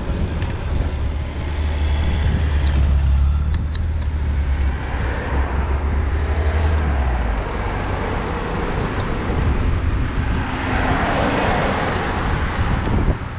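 Motor vehicles on a road: a low engine rumble through the first half, then the tyre and road noise of another vehicle swelling and fading near the end.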